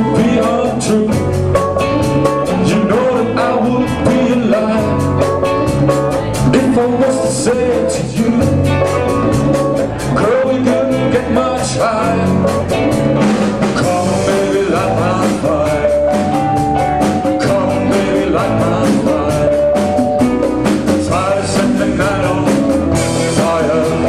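Live rock band playing with a singer at the microphone: drums keeping a steady beat under electric guitars and keyboard.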